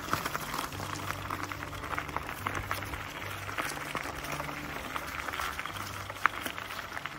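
Bicycle tyres rolling over a gravel trail covered in dry fallen leaves, a dense steady crackle and crunch, with one sharper click about six seconds in.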